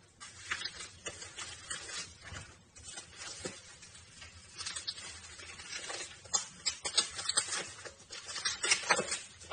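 Plastic packaging crinkling and rustling as an item wrapped in plastic is handled and unwrapped by hand, in irregular short crackles.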